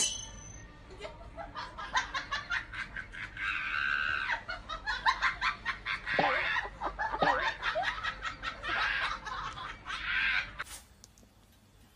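Laughter in quick repeated bursts, with a few high squeals, that stops about ten and a half seconds in.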